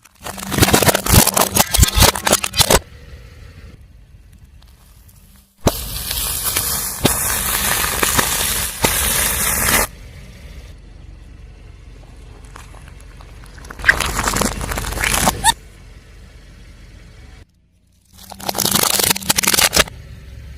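A car tyre rolling over and crushing crunchy objects: four bursts of crackling and scraping, each starting and stopping suddenly, the second a steady stretch of several seconds.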